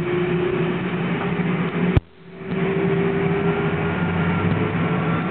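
Airbus A300's General Electric CF6-80C2 turbofans at takeoff power, a steady roar with a faint hum under it, heard through the cabin wall. About two seconds in, a sharp click cuts the sound out briefly before the roar builds back.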